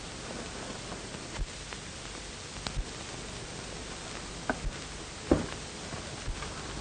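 Steady hiss of an old film soundtrack, with a few scattered short clicks and soft thumps, the loudest about five seconds in.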